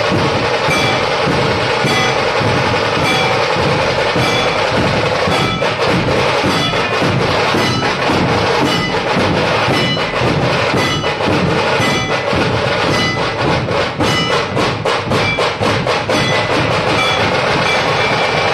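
Maharashtrian dhol pathak: many large barrel dhols beaten with sticks together in a loud, driving rhythm, with short ringing notes recurring over the beat. A little past the middle the strokes come quicker and sharper for a couple of seconds.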